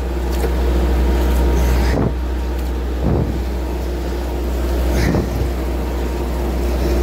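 A fishing trawler's engine running with a steady deep drone. A few short knocks come about two, three and five seconds in.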